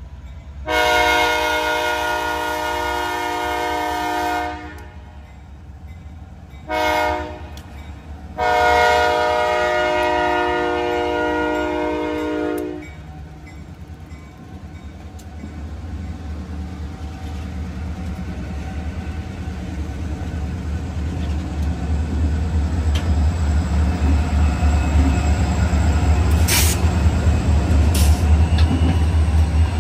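Wheeling & Lake Erie locomotive 109's air horn sounds a long blast, a short one and a long one, the close of a grade-crossing signal. Then the train comes closer, its engine and wheels rumbling louder, with two sharp clacks near the end.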